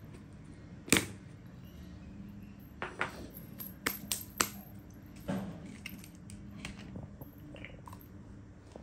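Plastic lid pressed onto a tin of powdered formula milk and the tin handled: a series of sharp clicks and clacks at uneven intervals, the loudest about a second in.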